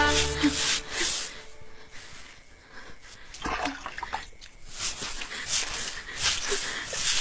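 A wet cloth scrubbed back and forth across a tiled floor in uneven strokes, with water splashing in a plastic bucket as the cloth is dipped in about three and a half seconds in.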